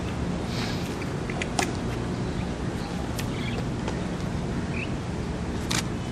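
Outdoor street ambience: a steady low rumble with a few sharp short clicks and brief faint chirps.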